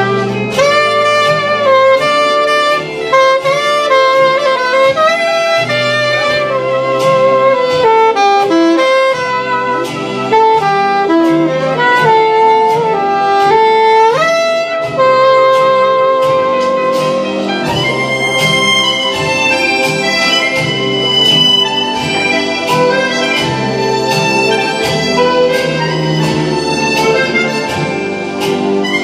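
Instrumental music: a wind-instrument melody over a steady beat and a moving bass line.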